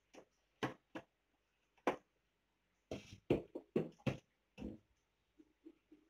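About ten irregular knocks and clunks as a toddler handles juice cartons and packets at an open refrigerator, taking them off the shelves and setting them down, with a quick run of knocks around the middle.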